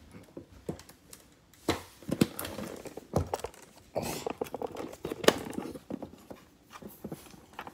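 Handling of an Ember travel mug in its cardboard gift box as it is being opened: scattered knocks and clicks, with a brief rustle about four seconds in.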